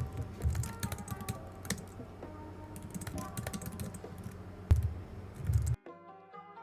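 Rapid, irregular clatter of computer-keyboard typing over soft background music; it stops sharply near the end.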